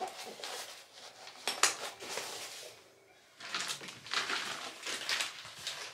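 Rustling of a fabric pouch being folded and rolled up by hand, with a sharp clack of a small object on the hard countertop about a second and a half in. A second, longer run of rustling follows near the end.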